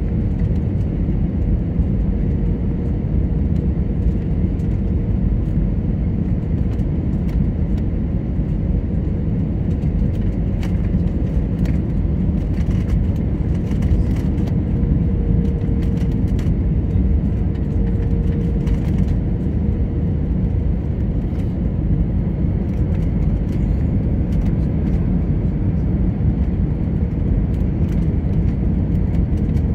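Cabin noise of an Airbus A320neo on approach with flaps extended: a steady low rumble of engines and airflow, with a faint steady hum over it.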